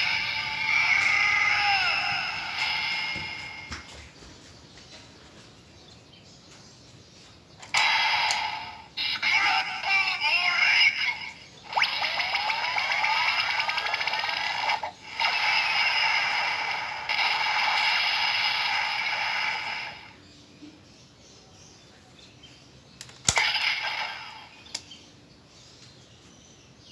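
DX Sclash Driver toy belt playing its electronic sound effects and jingles through its small speaker, in several bursts with rising tones and quiet gaps between them. A sharp click comes about 23 seconds in, followed by a short burst of sound.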